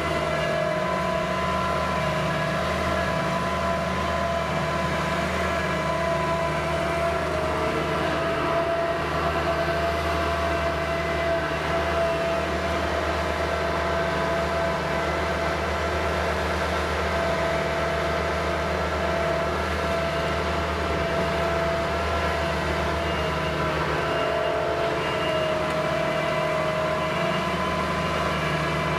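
New Holland skid-steer loader's diesel engine running steadily, with a high, steady whine over the engine note.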